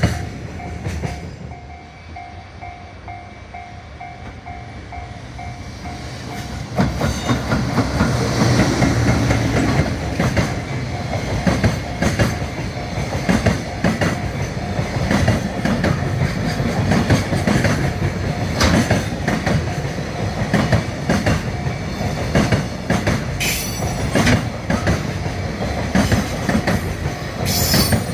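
A level crossing's warning bell ringing in a steady pulse, then from about seven seconds in a freight train passing close by, its wagon wheels clacking over the rail joints in a steady rhythm.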